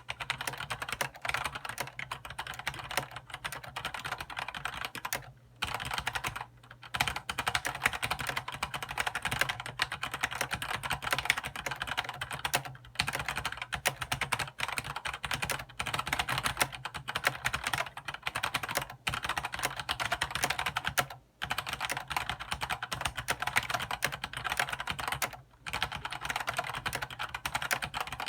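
ABKO Hacker K650 mechanical keyboard typed on quickly, a dense run of key clacks broken by a few short pauses. Some of its keys have been swapped to unlubricated Gateron Yellow linear switches, and the rest are stock clicky Outemu Blue switches.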